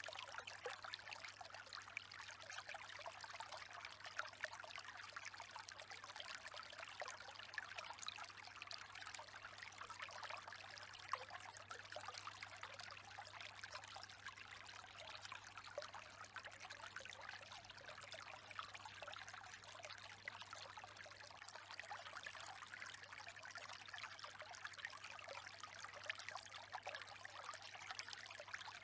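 Faint, steady running water with a trickling, stream-like texture, over a low steady hum.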